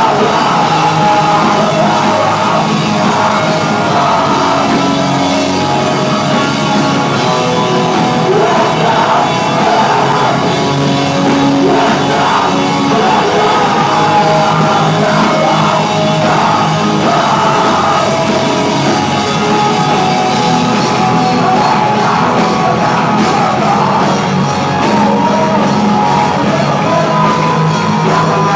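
Hardcore band playing live, with electric guitar, drum kit and shouted vocals, loud and continuous.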